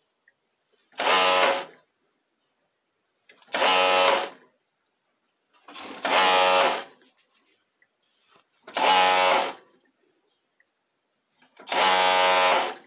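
Jack E3 overlock (serger) sewing elastic into a waistband, running in five short bursts of under a second each, about every two and a half seconds, and stopping completely in between.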